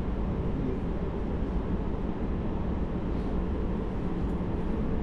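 Cabin noise inside a JR Hokkaido 733 series electric train running at speed: a steady low rumble of wheels on rail and the car's running gear.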